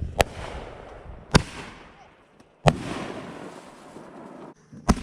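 Consumer fireworks going off: four sharp bangs spaced over a few seconds, each followed by a crackling hiss.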